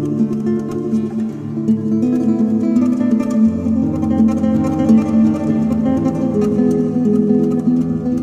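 Spanish guitar playing flamenco-style music: quick plucked notes over held bass notes, the bass shifting about a second in and again about midway.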